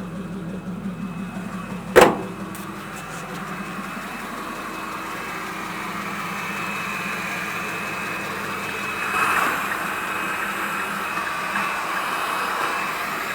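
A 1941 pickup's engine running just after a no-start caused by a rain-soaked engine and ignition, growing gradually louder. A single sharp knock comes about two seconds in.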